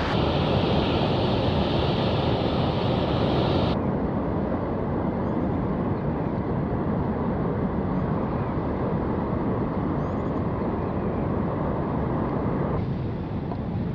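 Small boat under way: outboard motor running steadily under the rush of wind and water. The sound changes abruptly about four seconds in and again near the end.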